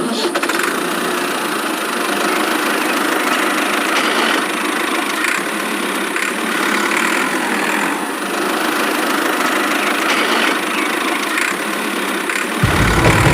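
Engine running steadily at idle, with a deeper rumble joining near the end.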